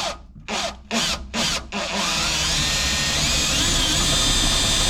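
Power drill with a step bit boring out a hole in engine-bay sheet metal. It runs in about six short trigger pulses, then steadily from about two seconds in.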